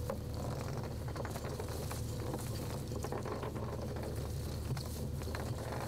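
Steady low rumble of a sardine purse seiner's engine, with irregular splashing and crackling of water throughout.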